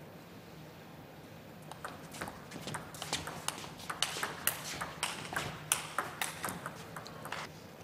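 Table tennis rally: the ball clicking sharply off the table and the rubber-covered bats in quick alternation, starting with the serve about two seconds in, quickening, and stopping suddenly near the end as the point finishes.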